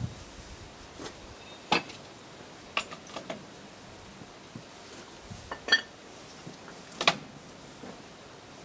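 Sharp metallic clanks and clicks, about seven, irregularly spaced, from a home-made steel lever briquette press as its handle and linkage are worked to push the freshly pressed briquette up out of the chamber.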